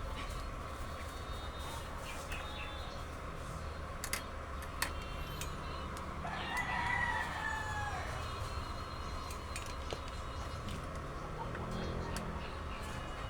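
A rooster crows once, a single call of about a second and a half that falls in pitch at the end, over a steady low hum. A few sharp clicks come a little before it.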